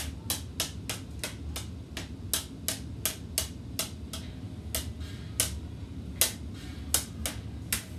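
A street hockey ball bouncing off a hockey stick blade as it is juggled: light, sharp taps in a steady rhythm of about three a second, some louder than others.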